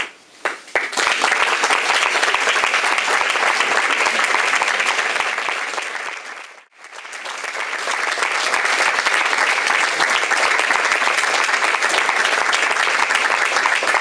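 Audience applauding with dense, steady clapping that builds within the first second, drops out for a moment about halfway through, then resumes.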